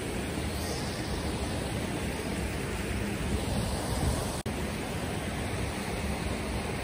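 Steady rush of a mountain river flowing over rocks, with a momentary dropout in the sound a little past halfway.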